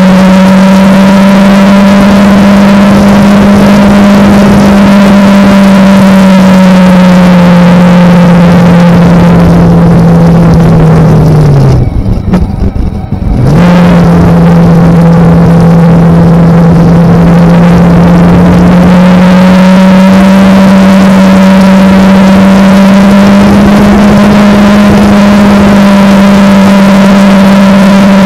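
Kawasaki Ninja sport bike's parallel-twin engine running at a steady cruise, with heavy wind noise. About twelve seconds in the rider briefly rolls off the throttle and the engine note drops away, then it comes back lower and slowly climbs again as the bike picks up speed.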